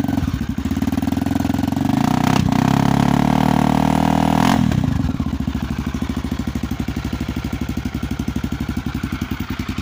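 Honda Tornado single-cylinder four-stroke dirt bike engine, freshly started and running through a newly fitted 778 Powercore 3 aftermarket exhaust. It holds a faster, louder idle for the first four or five seconds, then drops to a steady slower idle as it warms up.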